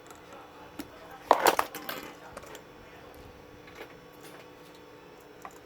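Small tools and parts being handled on a repair bench: a short clatter about a second and a half in, with a few lighter clicks before and after.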